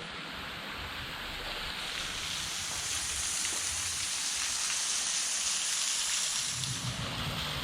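Waterfall rushing as a steady hiss of falling water, growing steadily louder, with a low rumble underneath.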